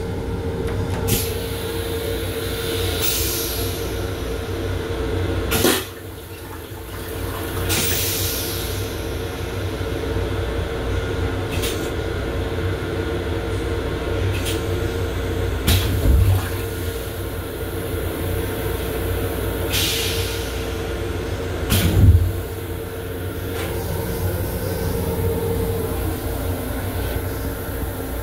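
A toilet flush cycle in an M7 electric railcar's restroom: three short hissing sprays of water rinse the bowl, and there are a few sharp knocks. Under it all runs the steady rumble and hum of the moving train.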